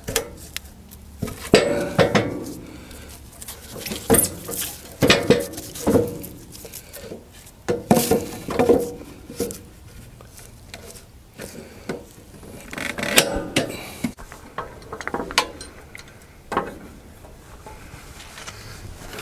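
Irregular metallic clanks and knocks, some ringing briefly, from handling on a portable bandsaw mill's steel frame and bunks. The saw is not cutting.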